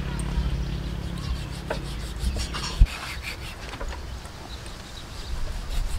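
A knife scraping the skin of a scalded cow head: repeated short rasping strokes that clean it off. There is one sharp thump about three seconds in.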